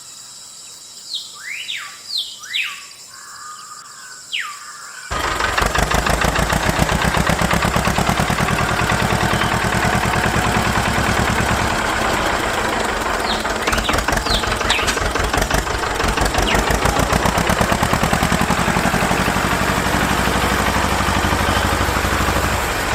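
Birds chirping, then about five seconds in a small motor starts abruptly and runs steadily with a fast, even pulsing.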